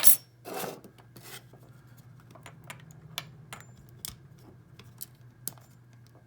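Small metal lock pins and parts being handled on a desk as a padlock is disassembled: a loud scraping rattle right at the start, then scattered sharp little clicks and clinks.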